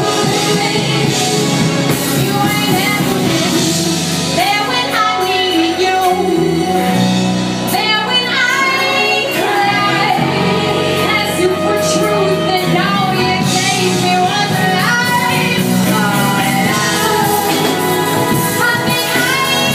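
A woman singing lead with a live band of drums, electric guitar and keyboards, her voice moving in long, gliding sung lines over the band.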